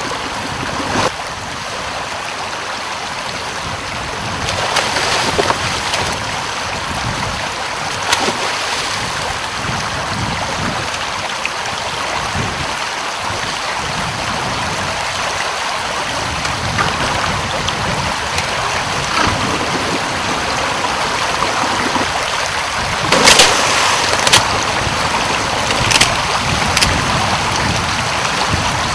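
Steady rush of flowing river water with wind, broken by a few short sharp cracks, the loudest two close together about three-quarters of the way through.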